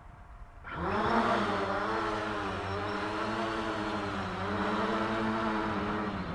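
The four electric motors and propellers of a FoxTech H-Wing VTOL spin up suddenly about a second in for a vertical takeoff, then run as a loud, steady propeller drone whose pitch wavers slightly up and down as the craft climbs.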